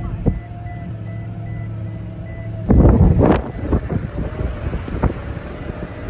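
A motor vehicle running with a steady hum and a faint, rapidly repeating high beep. About three seconds in comes a loud burst of rustling noise and knocks.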